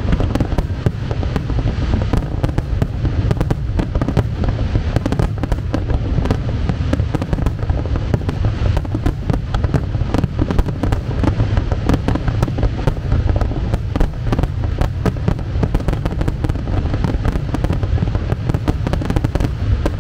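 Aerial fireworks display in a continuous barrage: many sharp bangs and crackles packed close together, overlapping without a break over a heavy low rumble.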